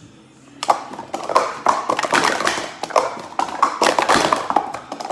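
Hard plastic Speed Stacks sport-stacking cups clacking rapidly as they are upstacked and downstacked on a stacking mat during a timed run. A fast, uneven run of sharp clicks starts about half a second in.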